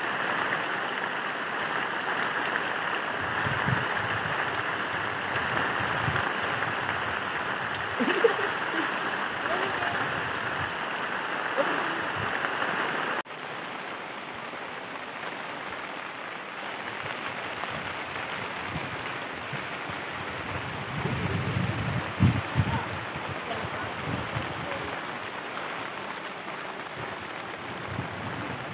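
Heavy rain pouring down onto a pond, a dense steady hiss. About halfway through it drops in level and turns duller, and a few low thuds come and go, most of them in the second half.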